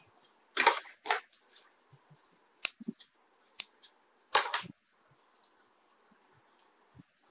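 Handling noise: a series of sharp clicks and short clatters from objects being picked up and set down on a wooden tabletop, the loudest about half a second in and again about four seconds in.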